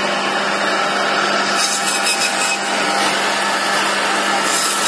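Electric bone saw (JG210) running: a steady motor hum under a continuous, noisy whir.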